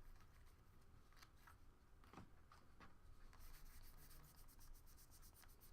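Faint handling of baseball trading cards: scattered soft clicks as cards are slid against one another, then a quick run of light flicks, about ten a second, in the second half.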